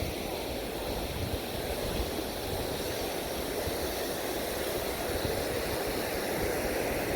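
Ocean surf washing onto the beach as a steady rushing, with wind gusting on the microphone.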